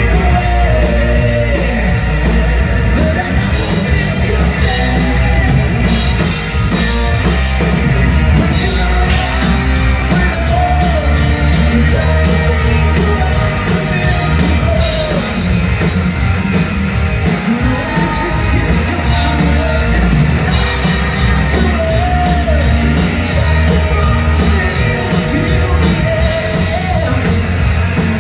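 A melodic rock band playing live: a male lead singer over electric guitars, bass guitar and a drum kit, with a steady beat on the cymbals.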